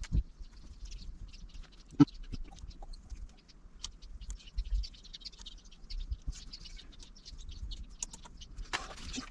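Scattered small clicks, taps and scratching, with one sharper click about two seconds in and a brief rustle near the end.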